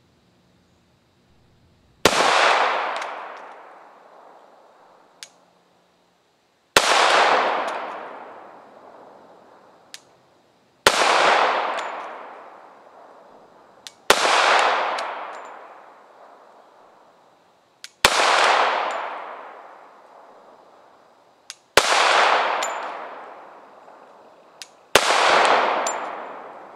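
Glock 21 Gen 4 .45 ACP pistol fired seven times in slow, deliberate single shots a few seconds apart, each shot followed by a long fading echo. A faint click sounds between most shots.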